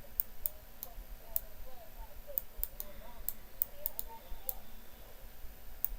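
Sharp, irregular clicks, about two or three a second, over faint wavering sounds like distant voices.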